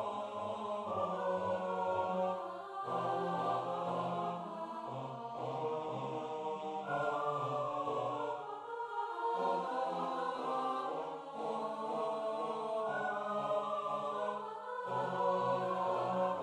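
Four-part a cappella choir (soprano, alto, tenor, bass) singing a slow chromatic passage of held chords, with the bass in short detached notes.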